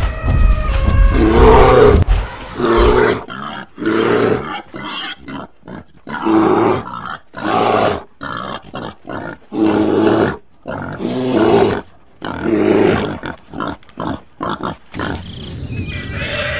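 Animal growls and roars in a series, one short call every second or so, after a loud low rumble in the first two seconds.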